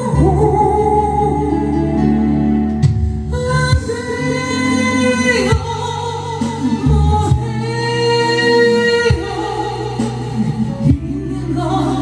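A song: a voice singing long held notes over backing music.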